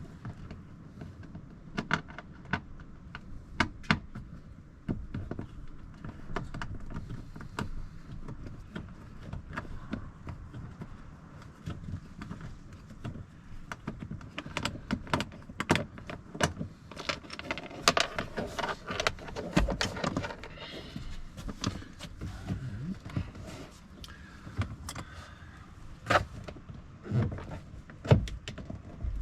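Irregular clicks, clinks and knocks of hand tools and plastic trim being worked on a car door panel, with a denser run of rattling clicks midway and a few louder knocks near the end.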